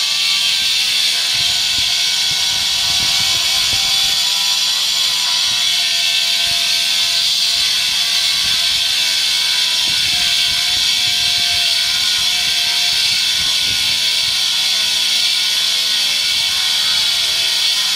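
Handheld angle grinder cutting through a black absolute granite slab: a loud, steady, high-pitched grinding that holds unbroken, its pitch wavering slightly as the blade is pressed into the stone.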